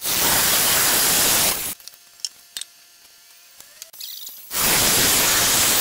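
Handheld electric circular saw cutting through a wooden board, two loud bursts of about a second and a half each, starting and stopping abruptly, with a quiet gap of a few seconds between them.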